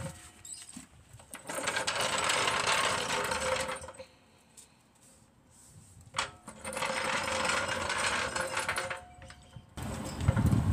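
Metal floor jack rattling and clicking as it is handled and moved into place, in two spells of about three seconds each with a short quiet gap between them.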